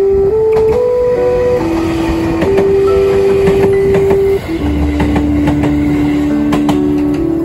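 JR Central 313 series electric train passing close by at a level crossing, its wheels clicking over the rail joints, with a low rumble that grows about halfway through. Background music of held melodic notes plays over it.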